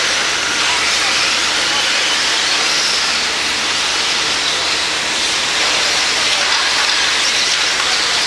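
Several radio-controlled stock-class stadium trucks racing together on a dirt track, their motors and tyres merging into a steady high hiss.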